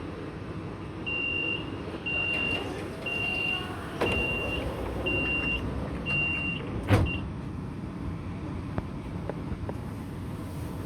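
Metro train door-closing warning: seven short high beeps about once a second, ending in a loud thud as the doors shut, over the steady hum of the stopped train.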